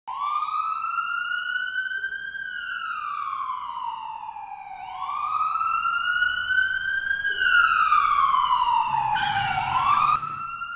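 Ambulance siren wailing, its pitch slowly rising and then falling in a cycle of about five seconds. About a second before the end, a short rush of noise sounds under it and cuts off suddenly.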